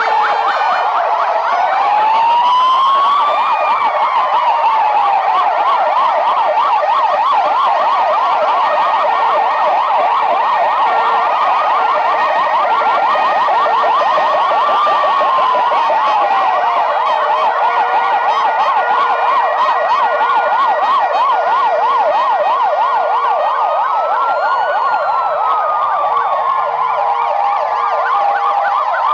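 Several ambulance sirens sounding at once as a column of ambulances passes. Slow wails rise and fall over a few seconds, layered over fast yelping warbles and an alternating two-note hi-lo tone.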